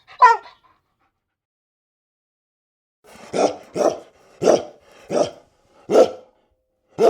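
Dog barking: one short yelp falling in pitch, then after a pause a run of six barks about two-thirds of a second apart.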